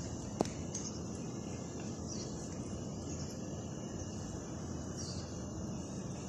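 Outdoor garden ambience: a steady high insect trill, with a few faint chirps and a single sharp click about half a second in.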